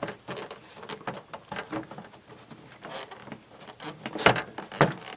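Handling noise from a cardboard-backed car door panel being pulled and lifted off the door: scattered light clicks, rustles and knocks, with two louder knocks near the end.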